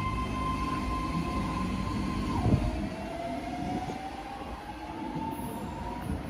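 BART train's electric propulsion whine over rail rumble: a steady high tone that drops suddenly in pitch with a thump about two and a half seconds in, then climbs slowly and steadily.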